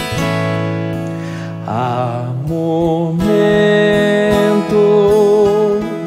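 Viola caipira, a ten-string Brazilian folk guitar, played fingerstyle with ringing plucked notes in a steady rhythm. About three seconds in, a man's voice starts singing a slow line with vibrato over it.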